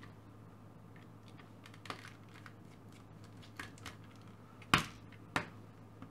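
Scattered sharp clicks and taps of a screwdriver working on the plastic housing of a hand-crank dynamo LED torch as it is being taken apart, the loudest click about three-quarters of the way through, over a faint steady hum.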